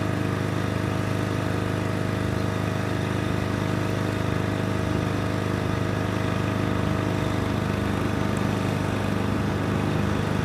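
Diesel passenger train's engine idling steadily with an even low hum.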